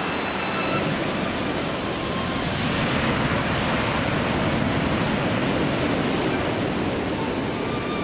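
Sea waves washing onto the shore in a steady rush, swelling about two and a half seconds in and easing off again.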